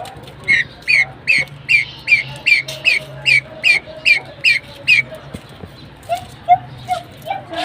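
A bird calls a rapid, evenly spaced series of about a dozen high, sweeping notes, roughly two and a half a second, which stops about five seconds in. Softer, lower calls follow near the end.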